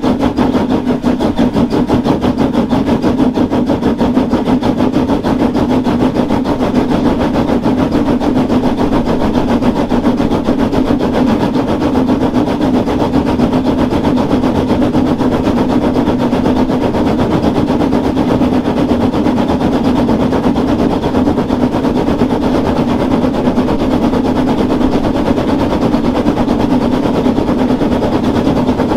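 Narrow-gauge steam locomotive 99 4011-5 working uphill, its chimney exhaust beating in a rapid, even chuff, heard up close from the front of the engine.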